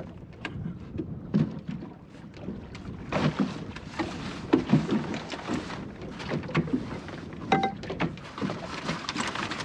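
Small plywood sailing skiff in choppy water: waves slapping and lapping at the hull, with irregular knocks and rustles of sailcloth, rope and spars as a reef is tied into the lug sail. A short squeak about seven and a half seconds in.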